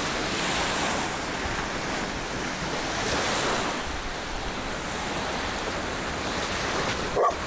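Sea surf washing steadily onto a sandy beach, with wind blowing across the microphone.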